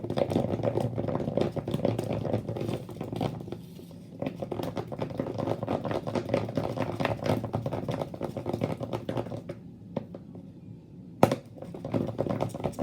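Soap-and-salt slime being stirred in a bowl with a mixing tool: rapid, irregular sticky crackling and scraping. It stops briefly near the end, then comes a single sharp knock and the stirring goes on.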